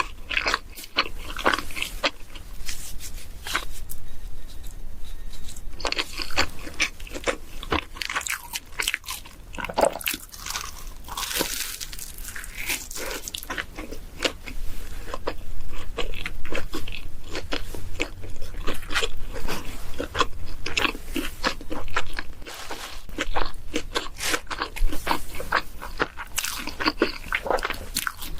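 A person biting and chewing crunchy food close to the microphone: a dense run of sharp crunches, louder in the second half.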